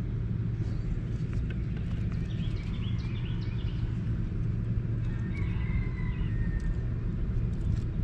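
Steady low mechanical hum from a running machine, with birds chirping around three seconds and again five to six seconds in, and a few light clicks.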